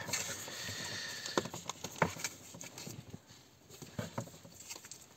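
Hands working at a plastic-wrapped cardboard box, trying to open it by hand. There is a soft rustle of packaging, then scattered light taps and clicks.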